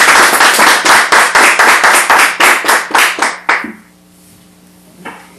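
Audience applauding, dense and loud, then thinning out and dying away about three and a half seconds in.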